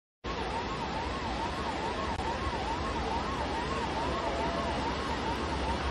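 A siren wailing quickly up and down in pitch, about two swings a second, over a steady rushing noise. It starts abruptly just after the opening silence.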